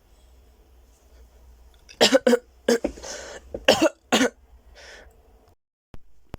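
A person's frenzied coughing fit: about five coughs in quick succession starting about two seconds in, with a noisy breath drawn in between them, then a last breath out.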